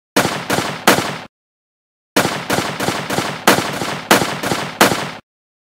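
Gunshot sound effects: three quick shots, then after about a second of dead silence a rapid run of about nine shots, roughly three a second.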